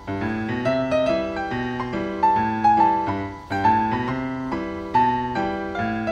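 Background piano music: a short melodic phrase of struck notes, repeating about every second and a half.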